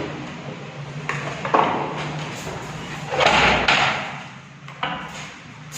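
Steel wire mesh cable tray being handled and fitted together by hand: a few sharp metal knocks, with a longer clattering scrape about three seconds in.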